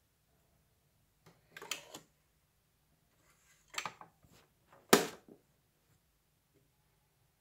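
Plastic controls of a Watson RR5888 radio cassette CD player clicked by hand: three short groups of clicks about a second and a half, four and five seconds in, the last the sharpest and loudest, as the unit is switched on.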